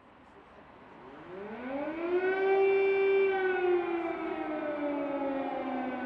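Civil defence air raid siren sounding one wail. It rises steeply about a second in, holds its top pitch briefly, then slowly sinks. It is the warning of an air attack.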